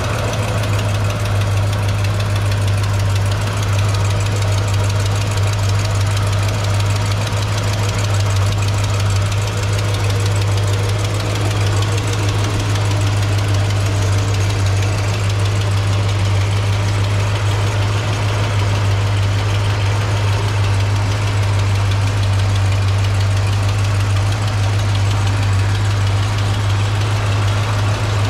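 1971 Cadillac Eldorado's 500-cubic-inch V8 idling steadily, heard close up at the open engine bay, with an even low drone.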